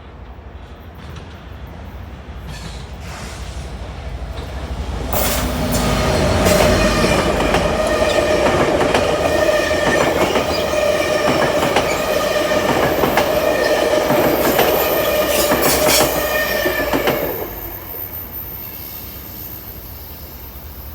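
EMD F59PHIT3 diesel locomotive leading a commuter passenger train past. The sound builds for about five seconds and is loud for about twelve, with a steady high ringing tone and rapid wheel clicks as the cars go by. It then fades quickly.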